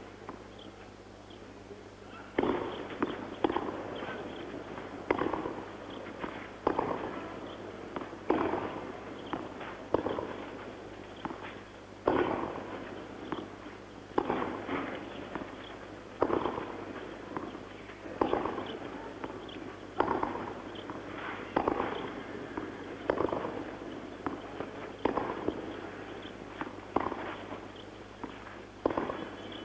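Tennis rally on a clay court: racket strikes on the ball back and forth, a sharp knock with a short echo about every two seconds, starting a couple of seconds in.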